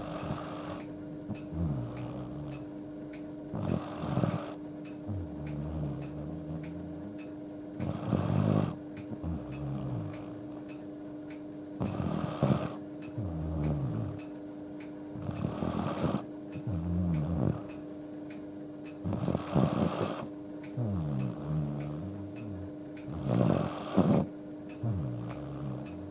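Akita dog snoring in deep sleep, a loud rumbling 'gogogo' snore that repeats about every four seconds: rattling low pulses, then a breathy rush. The owner puts it down to the dog sleeping with its head tipped upward, not to a respiratory illness. A steady low hum runs underneath.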